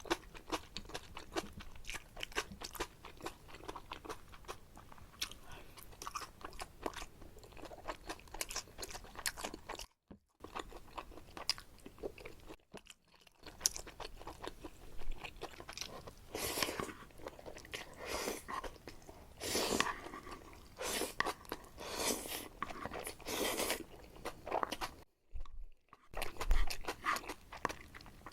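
Close-miked chewing of saucy jajangmyeon noodles: many small wet clicks at first, then a run of louder, longer mouth sounds in the second half. The sound drops out abruptly to silence a few times.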